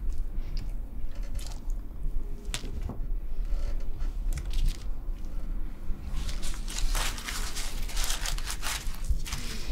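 Aluminium foil crinkling and crackling as it is handled, with scattered small crinkles and clicks at first and a dense, continuous run of crinkling over the last few seconds, over a steady low hum.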